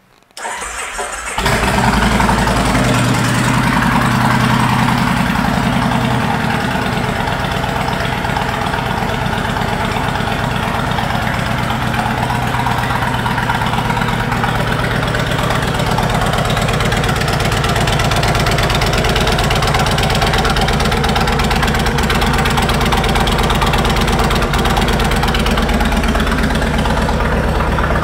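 Kawasaki Mean Streak 1600's V-twin, fitted with Vance & Hines pipes, started on the electric starter and catching about a second in. It runs a little faster for the first few seconds after it fires, then settles into a steady idle.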